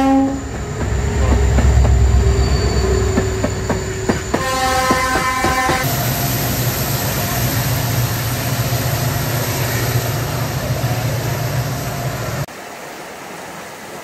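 A train horn sounds for about a second and a half, about four seconds in, over clicking from the wheels. Then the heavy rumble of the passing train goes on steadily for several seconds with a high whine over it, and cuts off suddenly near the end, leaving the fainter rush of a small waterfall.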